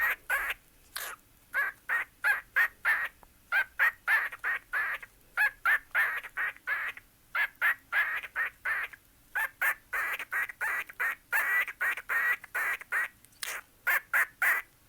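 Pet cockatiel calling in a long run of short, quick chirps, about three or four a second with a few brief pauses: its rhythmic 'rap'.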